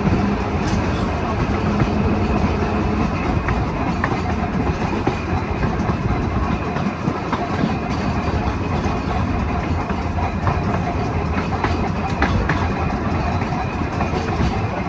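1926 double-truck Birney streetcar running along the line, heard from on board: a steady rumble of wheels and running gear on the rails, with scattered clicks.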